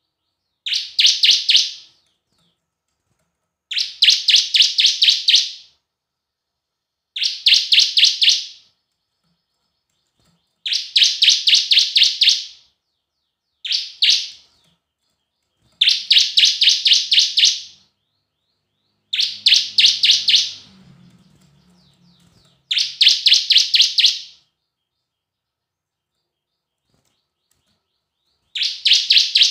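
Bar-winged prinia (ciblek) singing: nine short phrases of rapid, sharp, high chip notes, each lasting one to two seconds, one about every three seconds, with a longer pause near the end. This is the song that keepers play to coax other ciblek into singing.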